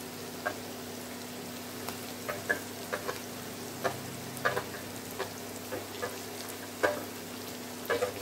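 Sliced onions and cumin seeds frying in oil in a pan: a steady sizzle with scattered sharp pops and crackles.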